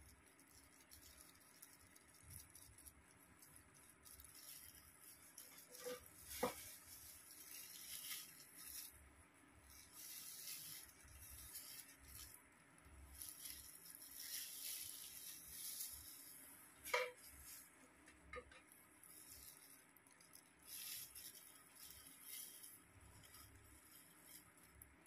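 Faint rustling of disposable plastic gloves and a hair-dye brush working through hair while hair colour is applied to the roots, with a few light clicks about six seconds in and again around seventeen and eighteen seconds.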